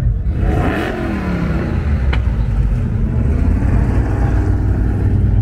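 Classic cars' engines rumbling as they cruise past in a slow procession. One car passes close about a second in, its engine note dropping in pitch as it goes by.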